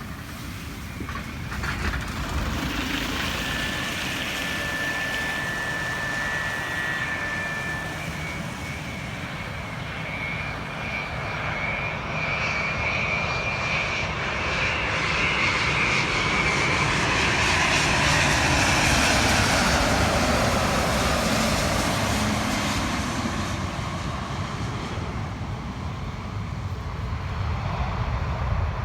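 Airbus A330neo's Rolls-Royce Trent 7000 turbofans on final approach: a high fan whine that grows louder, peaks about two-thirds of the way through with a falling pitch as the jet passes, then eases off.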